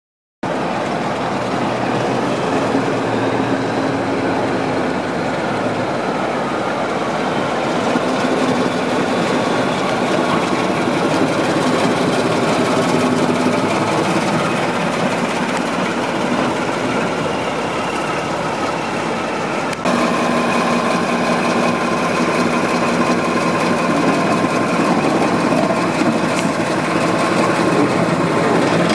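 Diesel engine of a BR Class 14 diesel-hydraulic shunter, a Paxman Ventura V6, running steadily as the locomotive moves slowly past. The steady engine sound shifts abruptly about two-thirds of the way through.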